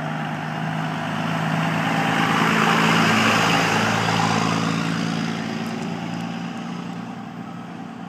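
A motor vehicle driving past close by: its engine hum and tyre noise swell to a peak about three seconds in, then fade away.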